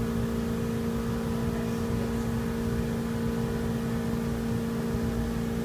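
Hot tub jets running: the jet motor hums steadily over a low rumble of churning, bubbling water.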